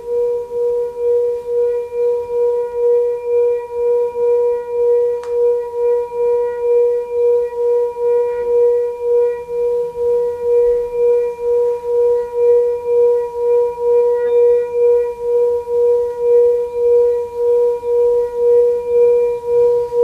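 Metal singing bowl rubbed around the rim with a wooden mallet, sounding one sustained hum with fainter higher overtones. The hum swells and fades steadily about twice a second.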